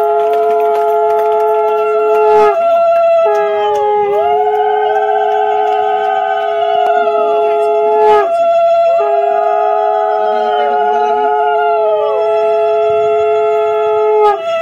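Conch shells (shankha) blown in long, steady held blasts, with women ululating (ulu) over them in warbling calls, the customary sounds at a Bengali wedding rite. The conch notes break off briefly about two and a half seconds in and again about eight seconds in, then carry on.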